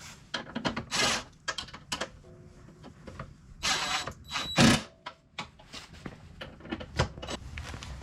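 Parts of a wood chipper being handled and fitted during assembly: irregular clicks, knocks and rattles, with a few longer scrapes about a second in and near the middle, the loudest knock about two-thirds of the way through.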